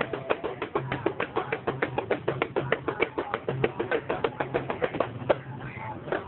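Rapid percussion: fast, even taps about eight a second over a low note that comes and goes, breaking off about five seconds in.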